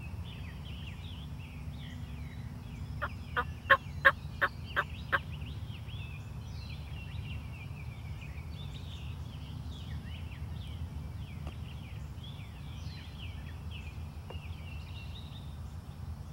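Wild turkey calling: a run of about seven loud, evenly spaced notes about three seconds in, swelling and then fading over two seconds. Birdsong chirps on underneath throughout.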